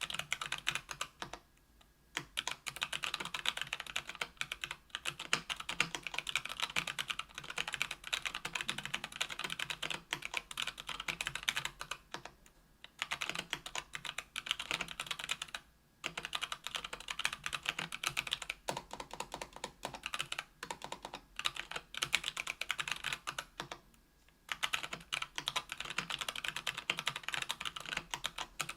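Typing on a KBDfans Tofu 65% aluminium keyboard with stock, unlubricated Kailh BOX Brown 60 g tactile switches on an aluminium plate: a fast, continuous stream of keystrokes. It breaks off briefly about two seconds in, near thirteen and sixteen seconds in, and near twenty-four seconds in.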